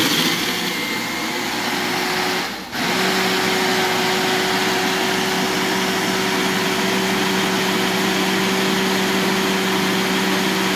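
Ninja Professional blender motor running with its single-serve cup, blending a liquid milk-and-coconut-cream mix. It dips for a moment about two and a half seconds in, then runs on steadily with a constant hum.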